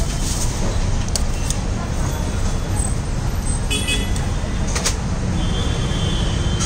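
Steady low rumble of street traffic, with a few brief crinkles and clicks of aluminium foil being handled.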